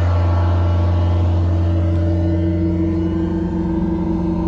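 Vacuum excavation truck's engine running steadily with a deep hum, its tone shifting slightly about two and a half seconds in.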